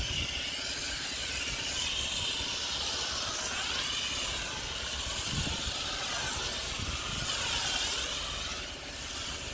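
A pressure-washer spray jet hissing steadily onto paving. The hiss wavers slowly in pitch as the jet sweeps back and forth, with a low rumble underneath.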